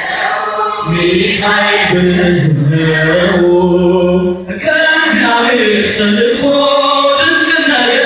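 Church choir singing a mezmur, an Ethiopian church hymn, in long drawn-out phrases, with a brief break about four and a half seconds in.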